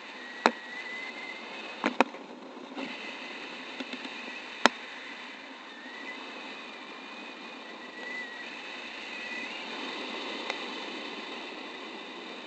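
Wind rushing over a camera mounted on a paraglider's riser in flight. A few sharp clicks and knocks of the mount cut through it, the loudest about four and a half seconds in, over a faint wavering high whistle.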